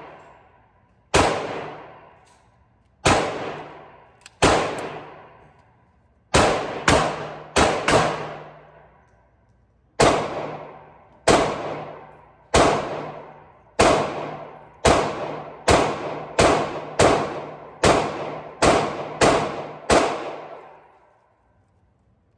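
About twenty pistol shots from a Glock 23, fired singly at first and then in quicker strings after about ten seconds. Each shot is a sharp crack followed by a long, fading echo.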